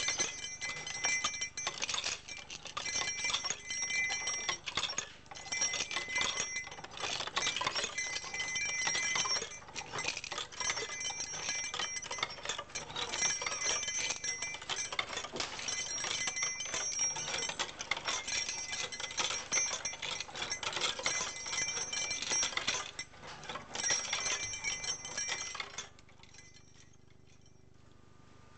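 Homemade hand-cranked kinetic object of bent wire, wooden spools and rubber-band drives clattering and rattling as it turns, with a high metallic ringing that comes and goes in spells of about a second. The clatter stops shortly before the end.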